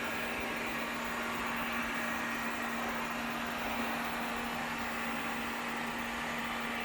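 Household vacuum cleaner running steadily: a constant rushing hiss over a steady low hum, with no change in pitch or level.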